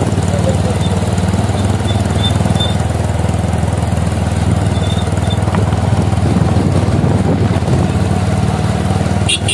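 Motorcycle engine running steadily, an even drone with no revving.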